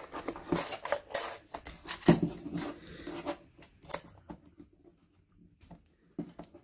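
Metal clicks and scrapes as the filter element is worked by hand out of an opened Bosch oil filter's steel can, with a short quiet spell about two-thirds of the way through.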